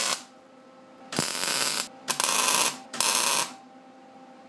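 Wire-feed welder tack-welding steel flat bar: three short bursts of welding arc, each under a second, with the tail of another burst right at the start.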